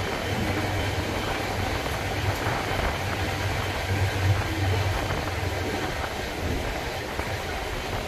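Passenger train running along the track, heard from inside a carriage: a steady low rumble from the wheels and running gear.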